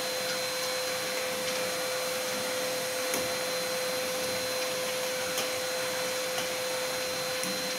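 Steady hum of running factory machinery, a constant whine over an even rush of noise, with faint ticks here and there.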